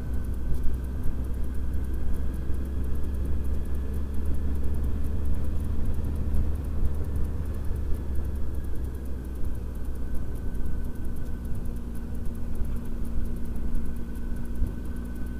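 Honda Hornet 900 motorcycle's inline-four engine running at a steady cruise, with a heavy low wind rumble on the bike-mounted camera's microphone.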